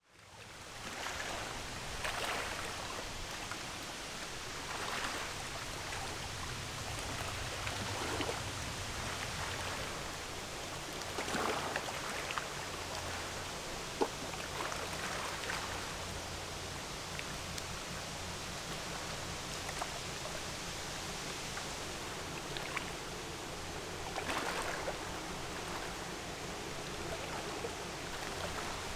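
River water washing and lapping in swells every few seconds, with a low steady hum underneath and one sharp tick about halfway through. It fades in from silence at the start.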